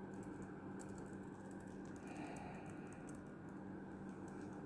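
Faint clicks of keys tapped on a 2014 MacBook Pro's keyboard, a quick run of taps about a second in and a few scattered ones after, as the keys are tested after a keyboard repair.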